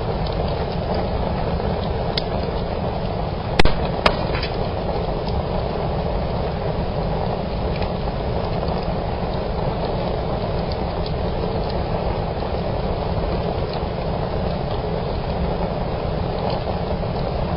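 Wood fire burning in a fireplace: a steady low rush of flames, with two sharp snaps close together about three and a half seconds in and a few faint crackles.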